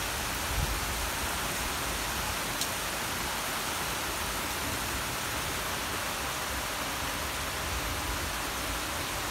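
Heavy summer rain pouring down in a steady, even hiss.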